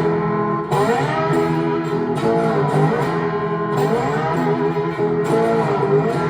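Homemade four-string fretless electric guitar in open E tuning, strummed through overdrive, with a new chord about every second and a half and notes sliding up in pitch into each one.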